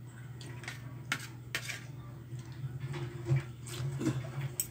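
Metal fork and spoon clinking and scraping on a ceramic plate of rice in a string of short clicks, over a steady low hum.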